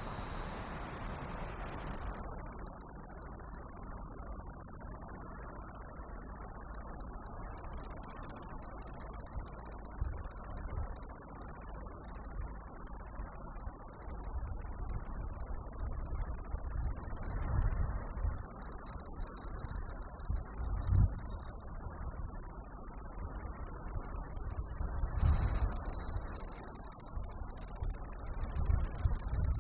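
Iwasaki's grass cicada (Mogannia minuta) singing: a very high, continuous buzz that begins as a quick stutter of pulses and settles within about two seconds into an unbroken drone.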